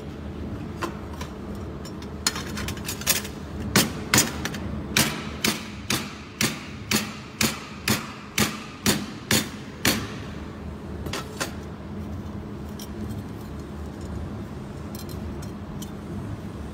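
Steel sheet being struck hard and repeatedly against metal: about fifteen sharp, ringing metal strikes, roughly two a second, starting a couple of seconds in and stopping about ten seconds in, followed by a few light knocks.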